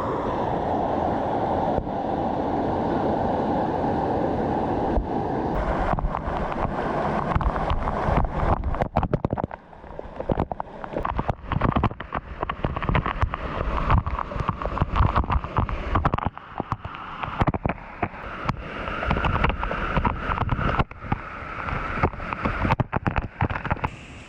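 Steady rush of water from a rainforest creek and its small waterfalls. From about a third of the way in, it is broken by many sharp knocks and gusty bumps of wind and handling on the microphone.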